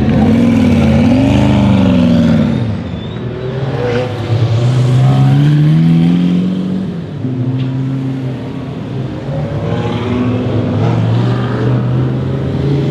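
Supercar engines revving and accelerating away one after another, first the Koenigsegg Regera's twin-turbocharged V8 with its pitch swinging up and down, then several more cars pulling off in turn, each rising in pitch.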